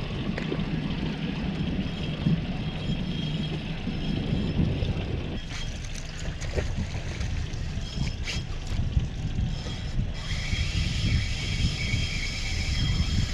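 Wind buffeting the microphone and sea water sloshing around a small outboard boat, with a low engine hum in the first half. A higher whirring joins about ten seconds in.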